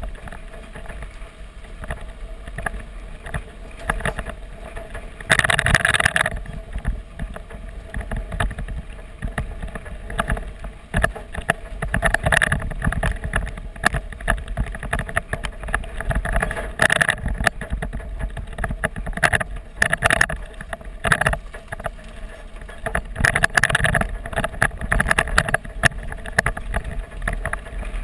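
Pickup truck driving over a rough dirt track, heard through a camera mounted low on its side: tyre and road noise mixed with wind on the microphone and uneven knocks and rattles from bumps. Several louder jolts come at irregular times.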